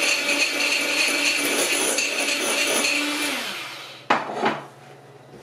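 Electric hand mixer whipping egg whites with a steady motor whine. About three seconds in it is switched off, and its pitch falls as it spins down. Two sharp knocks follow about a second later.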